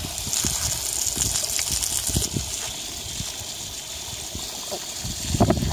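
Garden hose jet spraying water into a pond: a steady hiss of spray with splashing where the stream lands, the hiss strongest for the first couple of seconds.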